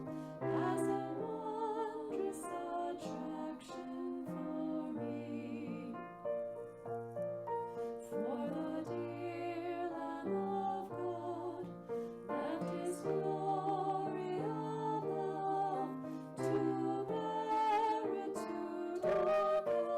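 Slow, gentle music on a keyboard, held bass notes shifting every second or so under a melody line.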